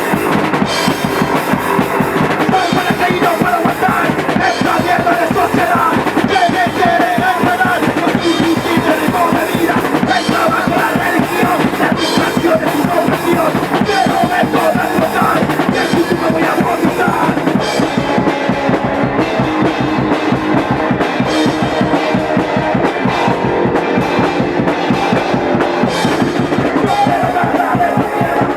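Punk rock band playing live: a full drum kit pounding out a steady beat under loud electric guitars and bass.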